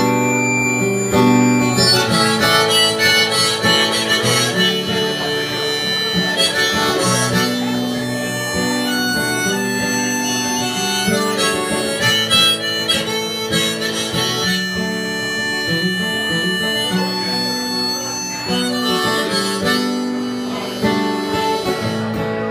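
Acoustic guitar strummed live with a harmonica playing sustained chords over it: the instrumental intro of a folk song, before the vocals come in.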